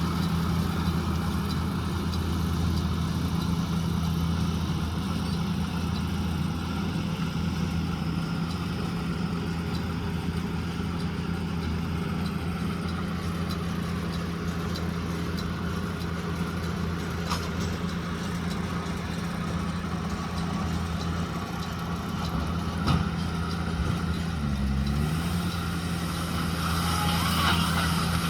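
JCB Fastrac 2170 tractor's diesel engine running steadily while it drives a combined round baler-wrapper working rice straw. Its pitch dips briefly about 24 seconds in, and louder higher-pitched machine noise builds near the end.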